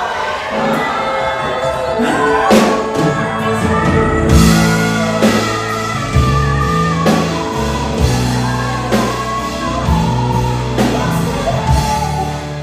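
A song with a singer over a band, carried by a stepping bass line and a regular drum beat.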